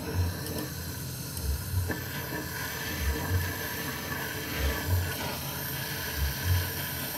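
Gas welding torch flame hissing steadily while a patch is welded onto a motorcycle muffler with a filler rod. Underneath, a low double pulse repeats about every second and a half.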